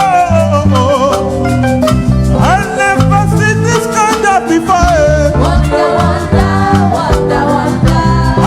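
Live church praise band playing upbeat, danceable African gospel music: a steady bass line and drums under a melodic lead line that slides and bends in pitch.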